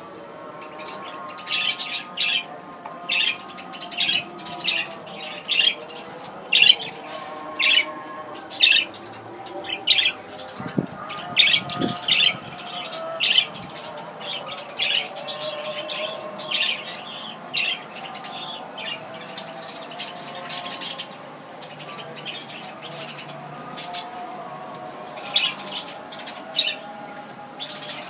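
A flock of budgerigars chattering in an aviary: continuous warbling, broken by short, sharp chirps one or two a second, which thin out after about twenty seconds.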